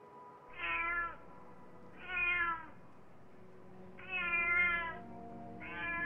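Domestic cat meowing four times, each meow about half a second to a second long.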